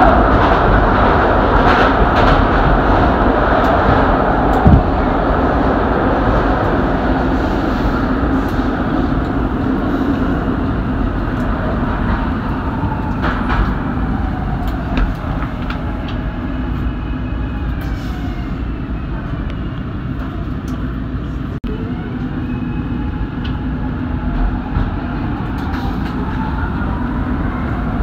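A train running on the rails: a loud rumble of wheels and cars, loudest at the start and gradually fading.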